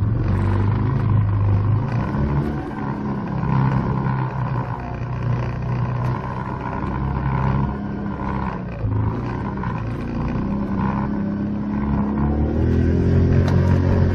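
ATV engine working under load, its revs rising and falling unevenly, then climbing steadily near the end.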